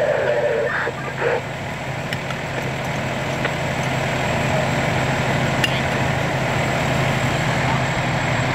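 Fire engine's diesel engine idling steadily, a constant low hum.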